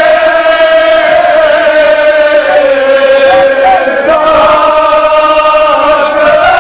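Crowd of men chanting a Shia mourning lament (noha) together in long held notes; the melody moves to a new note about four seconds in.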